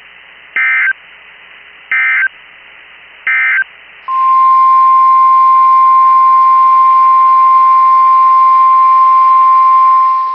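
Emergency Alert System header: three short bursts of SAME data tones about a second and a half apart, then the single steady NOAA Weather Radio warning alarm tone, held loud for about six seconds. It signals that a weather warning is about to be read.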